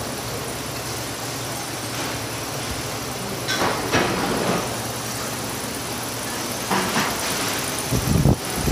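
Steady machine hum in a metal workshop, with clatters of sheet metal being handled on the shelves: a couple about three and a half to four seconds in, another near seven seconds, and heavier thumps near the end.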